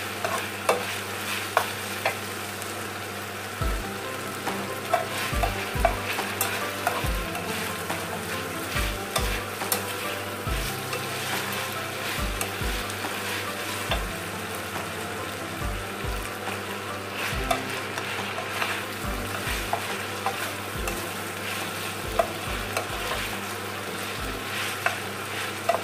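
Sliced cabbage, carrots, green beans and chicken sizzling in a nonstick frying pan while a slotted spatula stirs and turns them, with frequent light clicks and scrapes of the spatula against the pan.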